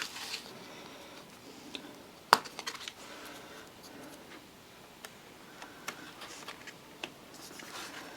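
Sparse, faint clicks and taps from small parts being handled in an open laptop, with one sharp click about two seconds in.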